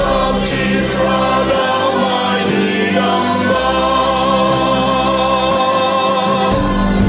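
Mixed choir of men and women singing a hymn in harmony, holding long sustained chords.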